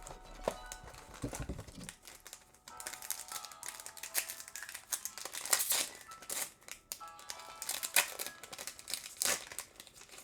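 Foil booster-pack wrapper crinkling and rustling in the hands, in dense, irregular bursts from about three seconds in until near the end, over quiet background music.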